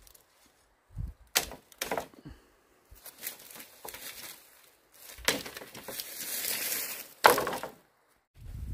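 Handling noises: a string of sharp knocks and cracks, then a rasping noise that swells for about two seconds and ends in a loud knock.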